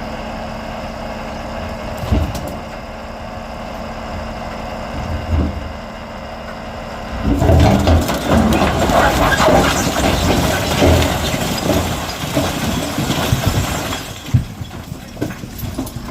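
Vehicle engine idling with a steady hum; about seven seconds in, a louder rough rumbling noise as a vehicle drives, with scattered knocks.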